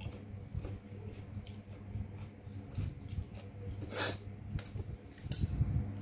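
A person eating by hand at close range: chewing and small clicks of food and dishes over a steady low hum, with a short noisy burst about four seconds in and heavier handling noise near the end.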